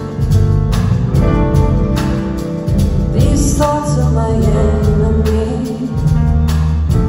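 Live band playing a soul-jazz song, with a woman singing over keyboards, bass and drums; the drums keep a steady beat.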